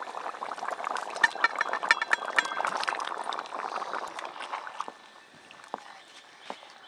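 A pot of thin fish curry bubbling at the boil as fried fish pieces are tipped in from a steel plate, with a run of splashes and light knocks in the first few seconds. The bubbling gets quieter after about five seconds.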